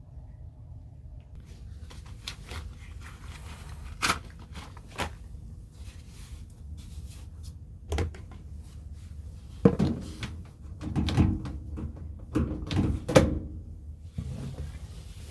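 Irregular knocks and clunks of hard objects being handled and set down: a few single knocks, then a busier run of clattering in the second half.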